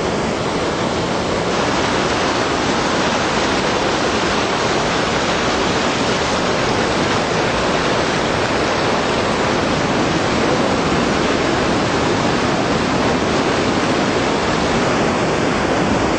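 Steady roaring and splashing of river rapids: fast white water tumbling over rocks.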